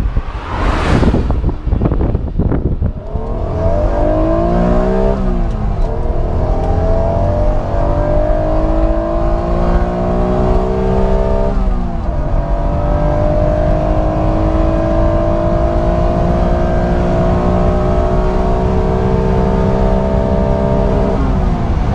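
Honda NSX's 3.0-litre VTEC V6 at full throttle: a brief loud pass-by, then, heard from inside the cabin, the engine climbing high in revs under hard acceleration. Two upshifts, about five and twelve seconds in, each drop the pitch before it rises again, the last gear pulling more slowly.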